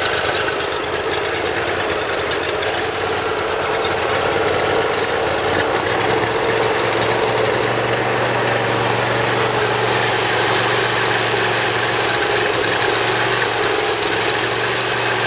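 Briggs & Stratton Intek V-twin lawn mower engine running steadily while warming up after a cold start. Its tone shifts slightly, with a low hum coming up, about six seconds in.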